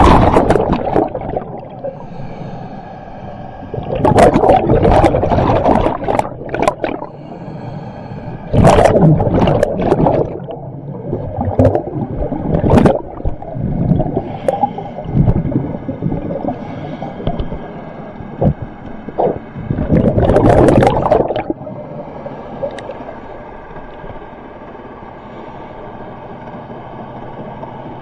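Underwater recording of a diver's exhaled bubbles gurgling past the camera in bursts a second or two long, every few seconds, over a steady low hum.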